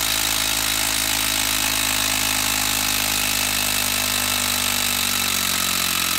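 Makita 12-volt brushed quarter-inch hex impact driver hammering steadily in reverse, backing a long TimberLOK screw out of a hardwood log round; its pitch sags slightly near the end as the screw comes free.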